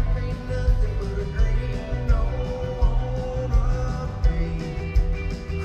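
Live country-rock band playing with a male lead vocal, a steady drum beat and electric guitar, as heard from the crowd in an arena.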